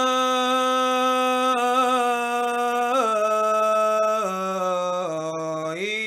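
Samaveda chant (Sama gana): a single voice holding one long drawn-out vowel. Its pitch steps down three times, starting about halfway through, then glides back up near the end.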